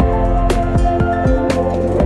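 Background music: held notes over a steady beat, with a stroke about every half second.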